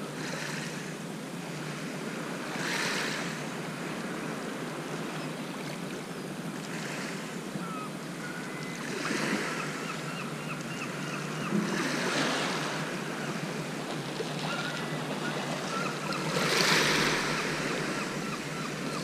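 Small waves lapping and washing over a shingle beach: a steady wash that swells every few seconds, loudest near the end.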